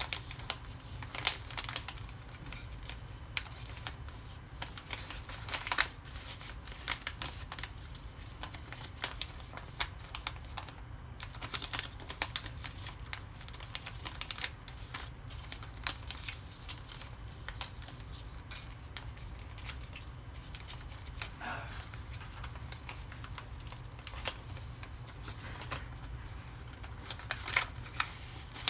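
A sheet of origami paper being folded and creased by hand: irregular crisp rustles and taps, a few sharper than the rest, over a steady low hum.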